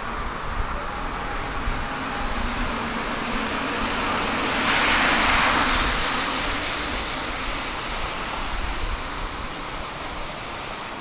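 City street traffic: a car passes, its tyre noise swelling to a peak about halfway through and then fading, over a steady hum of traffic.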